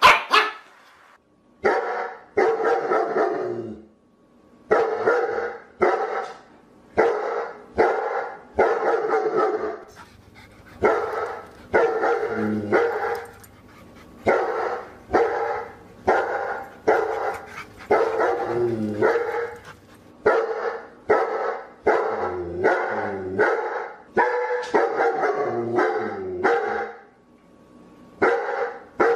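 A dog barking over and over, the barks coming singly or in quick pairs with short pauses between.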